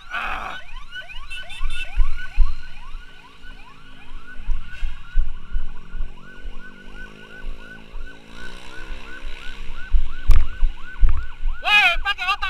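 Ambulance siren yelping in quick rising sweeps, about three a second, switching to a louder, faster warble near the end. Underneath, a motorcycle engine revs up.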